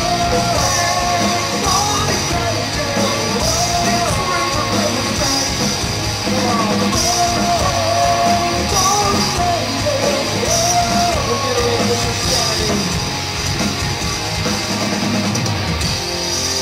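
Rock band playing live: a male singer singing over electric guitar and a drum kit with steady cymbal hits.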